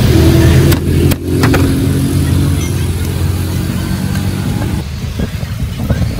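Motor vehicle engine running close by, a steady low rumble that fades about five seconds in. A few sharp knocks sound about a second in.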